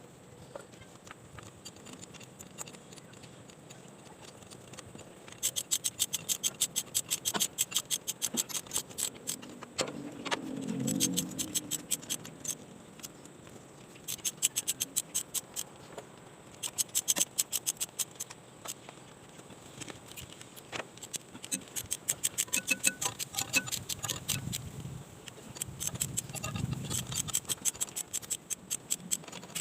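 Hand ratchet wrench clicking in repeated runs of rapid clicks, a few seconds at a time, with a couple of dull knocks in between: tightening hold-down bolts while refitting the fuel injectors on a Komatsu PC-200 excavator engine.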